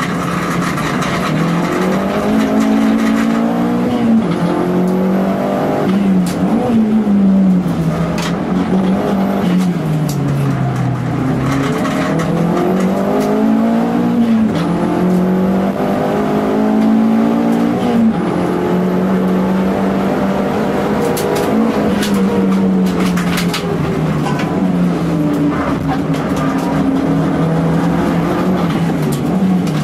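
Toyota Starlet EP82 GT Turbo's turbocharged 1.3-litre four-cylinder engine heard from inside the cabin at race pace, its pitch climbing under full throttle and dropping again on each lift and gear change, over and over around the lap. A faint high whistle rises on several of the pulls as the turbocharger spools.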